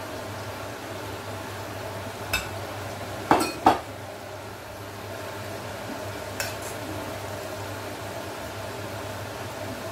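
Flour-coated chicken pieces deep-frying in a pot of hot oil with a steady sizzle, while metal tongs and a utensil clink against the steel pot four times, loudest in a pair about three and a half seconds in.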